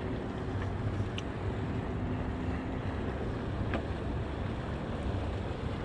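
Steady wind rumble on the microphone at a windy shoreline, with a faint steady hum beneath it and a few faint ticks.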